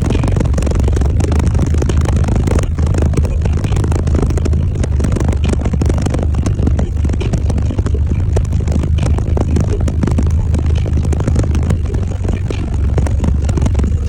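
Car audio subwoofers playing heavy, loud bass without a break.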